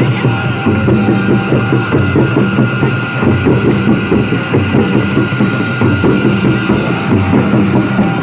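Santhali tumdak barrel drums played by hand in a fast, steady Lagre dance rhythm.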